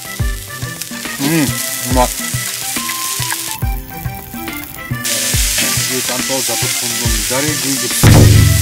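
Food sizzling over high heat, a steady crackling hiss that drops out for a moment in the middle, with background music playing over it. A loud low thud near the end.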